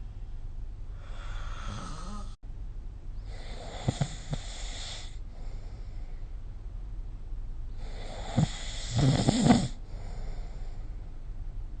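Snoring in slow breaths: two rattling snores, the second a little past the middle and the loudest, each followed by a softer breath out, over a low steady hum.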